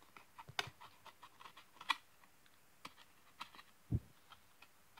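Foil Yu-Gi-Oh trading cards being handled and flicked through by hand: faint, scattered light clicks and ticks, with a soft thump about four seconds in.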